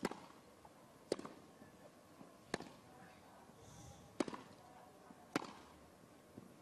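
Tennis rally: a racket striking the ball five times, sharp single cracks about one to one and a half seconds apart, over a faint background hum.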